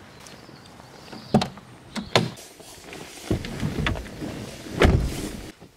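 Car door handling: a few sharp clicks, then two heavy thuds, the loudest about five seconds in, as a car door is opened and shut.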